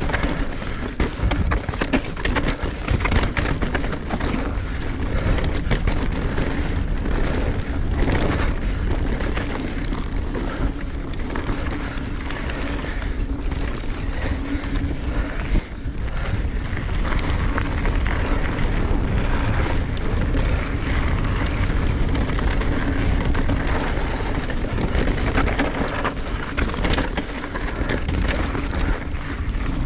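Mountain bike descending a rough, rocky trail at speed: wind buffeting the microphone and tyre roar over dirt and rock, with frequent rattles and knocks from the bike and chain over the rough ground.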